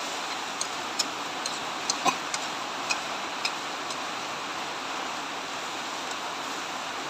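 Metal spatula clinking and scraping against a wok while stir-frying shredded cabbage and carrot, with sharp clicks several times in the first three and a half seconds and only a few after, over a steady hiss.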